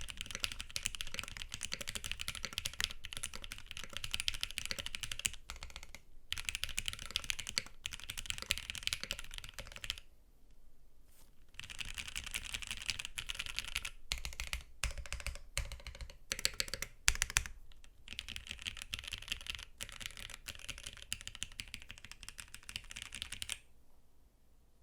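Mechanical keyboard with lubed and filmed Gateron Milky Yellow Pro linear switches in an aluminium-plate case with GMK keycaps, being typed on in quick continuous runs. The typing pauses briefly about ten seconds in, then comes back with some heavier separate keystrokes, and stops shortly before the end.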